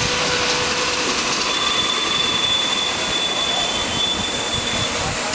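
Miniature live-steam locomotives hissing steam steadily. A thin, high whistle tone starts about a second and a half in and holds for about three seconds.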